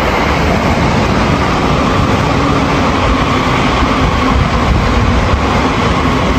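Tokiwa limited-express train, an E657 series electric multiple unit, running past and under the footbridge. A steady rumble of wheels on rail mixed with running noise, with a faint steady hum over it.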